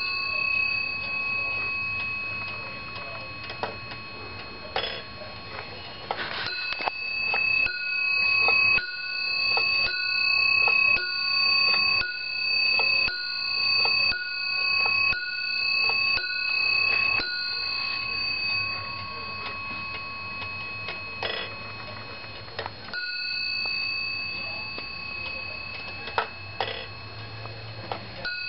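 Warmink Schippetje wall clock striking the hour on its bell: about a dozen strokes, roughly one a second, each ringing on and dying away, with the movement ticking between. A single stroke rings near the start and another couple later on.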